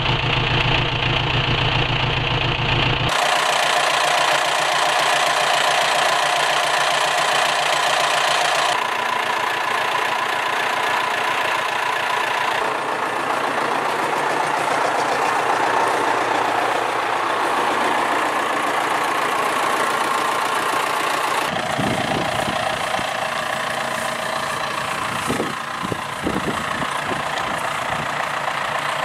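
Vintage tractor engines idling, heard as a run of short clips in which the engine sound changes abruptly every few seconds; a few low bumps near the end.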